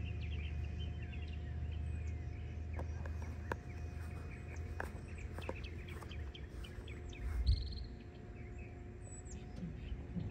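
Small birds chirping repeatedly outdoors over a steady low hum, with a few light clicks.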